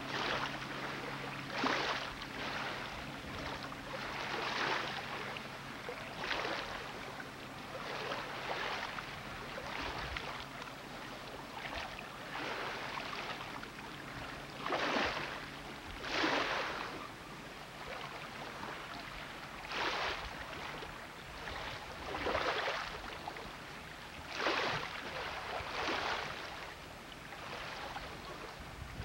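Small waves washing and splashing against the dock posts in short hissing surges every second or two, with a faint steady low hum in the first few seconds.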